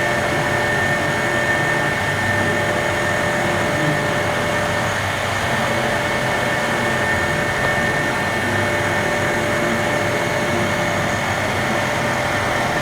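DMG Maho CNC milling machine, spindle at 2500 rpm, taking a light finishing pass in 16CrMo4 steel with Lamina inserts. It gives a steady machining noise with a steady high whine and a lower tone above it.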